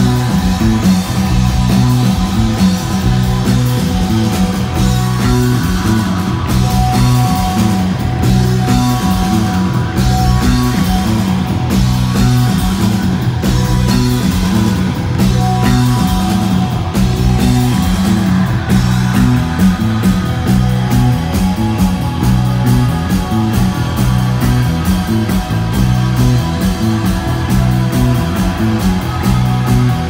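A shoegaze rock band playing live and loud: distorted electric guitars over bass and drums, in a stretch without singing.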